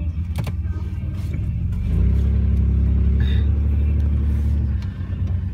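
A motor vehicle's engine running with a low, steady rumble. It swells louder for about three seconds in the middle, then eases off.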